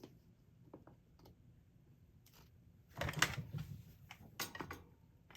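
Canvas and wooden frame being handled and pulled taut: scattered light clicks and taps, then a busier patch of clicking and rustling about three seconds in.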